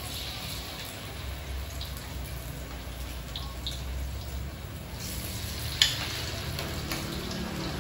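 Battered banana slices frying in hot oil in a wok, a steady sizzle, with one sharp tap about six seconds in.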